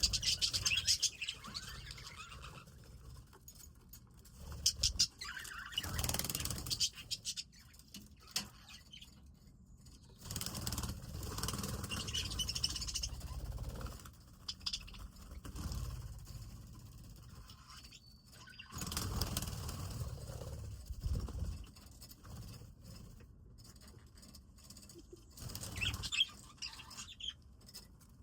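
Small birds chirping in short, irregular bursts, mixed with clicks and scuffling noises.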